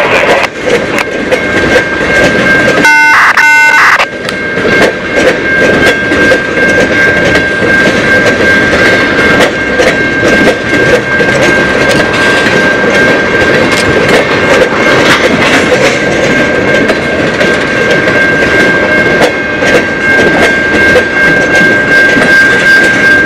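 Freight train of tank cars rolling past, wheels clattering over the rail joints. A steady high-pitched tone runs over it and breaks off briefly about three seconds in.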